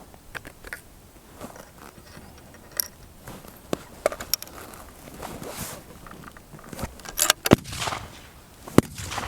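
Rifle and shooting gear being handled at a firing point: scattered clicks, rattles and scrapes, with two sharper, louder cracks in the last two seconds.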